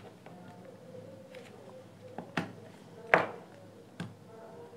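A few sharp plastic clicks and snaps as the front grille of a Philips BT64 Bluetooth speaker is pried off its housing with a pry tool, the loudest snap a little past three seconds in, as the grille clips let go.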